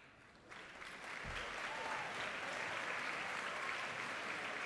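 Large audience clapping in a hall, starting about half a second in and swelling within a second to steady applause.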